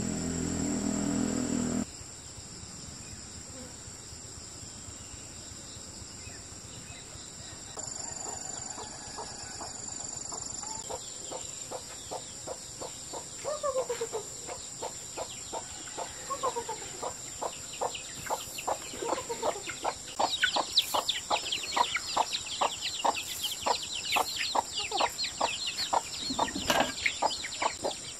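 Hens clucking and chicks peeping while they feed on rice scattered over concrete, with a quick, even run of sharp pecking taps that builds through the second half. A low rumble at the start cuts off about two seconds in.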